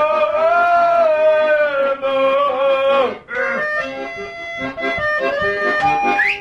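Accordion music: one long held note that swells and bends slightly, then a short break about three seconds in, followed by steady sustained chords.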